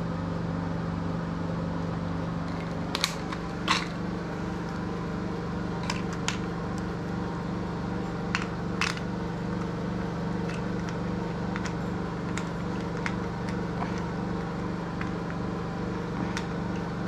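Scattered light clicks and taps of pills and a plastic pill organizer being handled, the two loudest about three to four seconds in, over a steady low hum.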